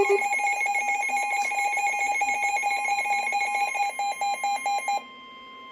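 NOAA Weather Radio's steady 1050 Hz warning alarm tone, the signal that a warning message follows, with a rapid pulsing alert beep sounding over it that stops about five seconds in, leaving the steady tone alone.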